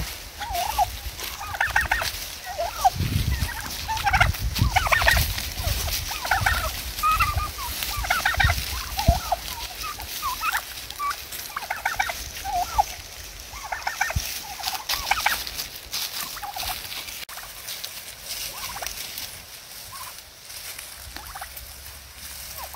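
Domestic turkeys calling, many short calls one after another, as the birds squabble. Low rumbling in the first half.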